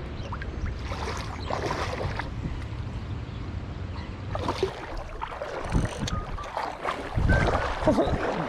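Wind buffeting the microphone over sloshing river water, with a few louder splashes scattered through.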